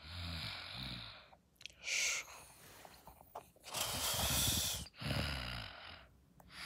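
A person snoring: several rattling snores on the in-breath, with shorter hissing breaths between them.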